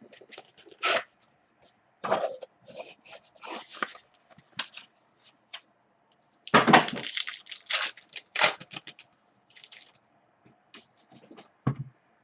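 A 2013 Supreme baseball card box being handled and opened and its cards pulled out: scattered taps, clicks and scrapes of cardboard and cards, with a louder scraping, tearing burst lasting about a second about six and a half seconds in.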